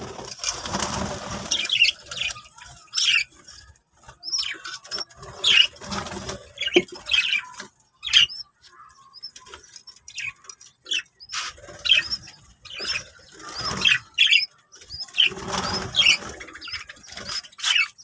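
Small parrots chirping in many short, high calls, with two longer rustling bursts, one about a second in and one near the end.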